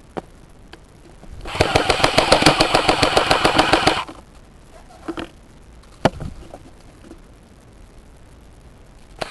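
Airsoft gun firing a rapid burst on full auto for about two and a half seconds, starting about a second and a half in, followed by a few single sharp shots or BB impacts.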